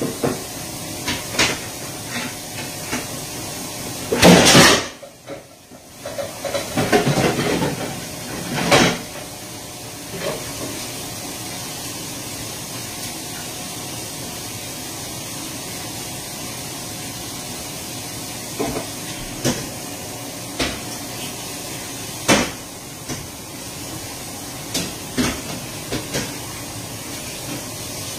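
Scattered knocks and clatter of things being handled at a kitchen counter, loudest in a burst about four seconds in and a run of clatter just after, over a steady hiss.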